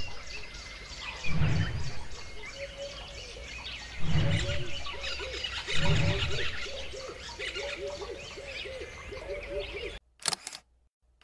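Old-film countdown sound effect: a film projector's steady mechanical clicking, with three deep thumps and warbling squeaks over it. It cuts off suddenly near the end, leaving a few short crackles.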